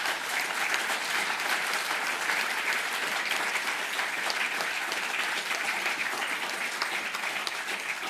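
Audience applauding: steady clapping that begins to fade near the end.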